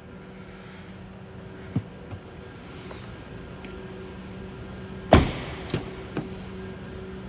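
A Lexus LX 570 SUV door shut with a single solid thump about five seconds in, followed by a few light clicks of a door handle and latch as the rear door is opened, over a steady low hum.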